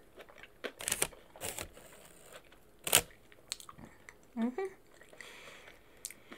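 Close-up eating sounds: biting and chewing boneless fried chicken wings, with sharp crunches and mouth clicks, the loudest about three seconds in. A brief hummed vocal sound comes around four and a half seconds.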